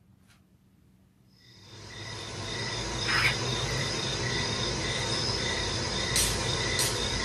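Intro of a pop song playing back: after about a second and a half of near silence, a hissing ambient haze with faint steady high tones fades in and holds, before the vocals begin.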